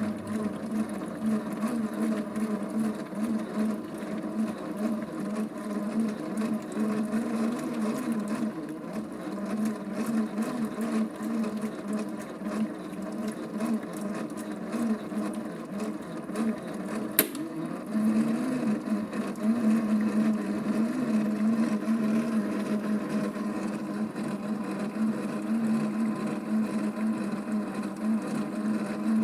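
Small electric motor of a vintage Theo Klein Miele toy washing machine running, with water in the drum. The steady hum swells and fades in a regular rhythm, with one sharp click a little over halfway through.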